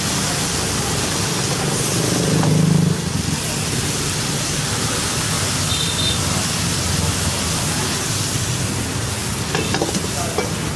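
Hot oil sizzling steadily, with street traffic and voices behind it. A louder low hum swells about two seconds in and stops abruptly just before three seconds.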